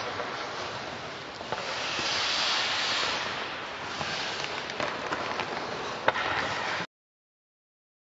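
Hockey skate blades scraping and carving on rink ice, with scattered clacks of sticks and pucks; a sharp clack about six seconds in is the loudest. The sound cuts off abruptly near the end.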